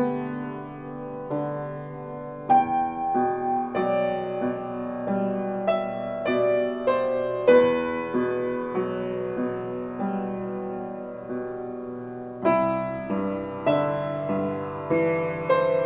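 Upright acoustic piano played solo in a contemporary piece: melody notes over chords, each note struck and left to ring and fade. Fuller, louder phrases come in about two and a half seconds in and again near the end.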